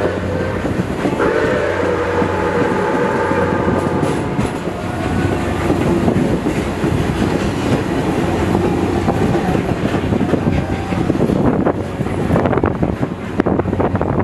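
Steam excursion train hauled by Milwaukee Road 261 running along the track, its whistle sounding for about three seconds a second in, then steady running noise with wheels clattering over the rails, plainest near the end.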